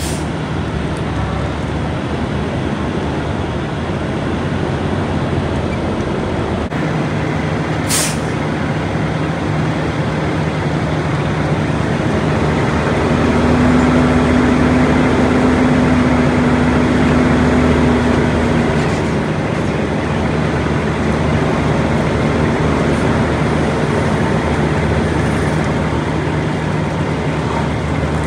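Semi-truck diesel engine running steadily, with one short, sharp air hiss about eight seconds in; the engine noise grows louder for several seconds in the middle.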